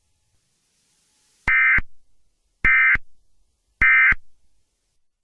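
Emergency Alert System end-of-message signal: three short, identical bursts of warbling digital data tones, about a second apart, each with a brief echo trailing off.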